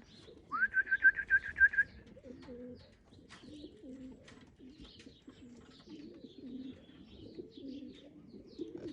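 Racing pigeons cooing, soft repeated coos throughout. About half a second in comes a quick run of about eight high chirps, louder than the coos.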